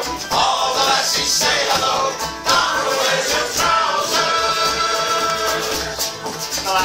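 Live acoustic folk band: guitars strummed in a steady rhythm while several voices sing together.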